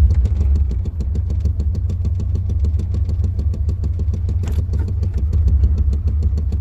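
1993 Chevrolet C1500 pickup's engine idling roughly, with a fast, slightly uneven pulsing: a really bad stutter, the rough idle the truck is being troubleshot for. A sharper click sounds about four and a half seconds in.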